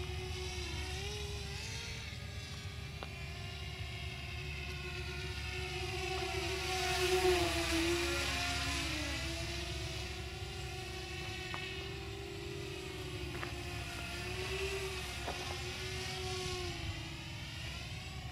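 DYS X230 racing quadcopter's electric motors and propellers whining in flight, the pitch wavering up and down with the throttle. The sound swells to its loudest about seven seconds in on a fast pass, and the pitch drops as the quad goes by.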